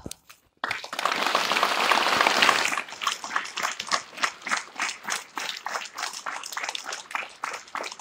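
Group applause: a dense burst of clapping starts about a second in, then after a couple of seconds thins into a run of separate, fairly evenly spaced claps.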